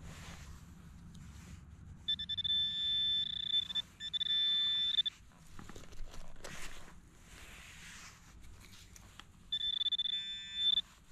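Handheld metal-detecting pinpointer probe sounding a high, steady electronic tone while held in a dig hole, signalling metal close by: two tones of about one to two seconds in the first half, and another near the end. Between them come short scrapes of a hand digger and fingers in soil and grass.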